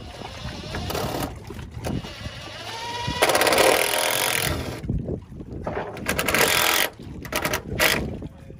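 Red cordless drill running in several bursts, driving screws through a white trim strip into the side of a composite deck. Its motor whines up in pitch near the start, then runs hard for over a second as a screw goes in, followed by a second run and a few short pulses near the end.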